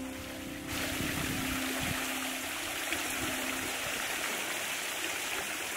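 Water spilling over a pool's raised tiled spillway edge into the basin below: a steady splashing rush that takes over under a second in.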